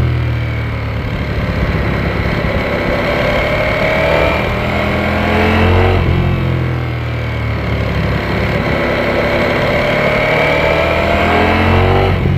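Ducati Panigale V4 S's 1103 cc V4 engine pulling under load while riding, its pitch climbing through the gears, with a gear change about halfway through and another near the end.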